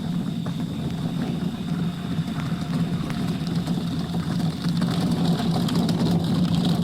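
An engine running steadily with a low drone, growing somewhat louder and harsher over the last couple of seconds.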